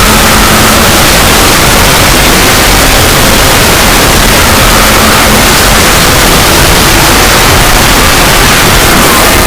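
Extremely loud, static-like noise spread evenly over all pitches, holding steady at full level: a logo sound effect over-amplified until it is clipped and distorted.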